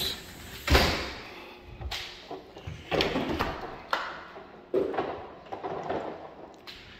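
Footsteps on a hardwood floor in an empty room, about one a second, the first one the loudest.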